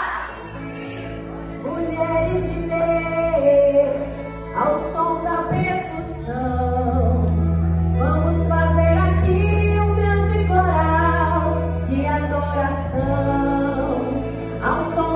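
Women's voices singing a worship song over instrumental accompaniment with long, held bass notes.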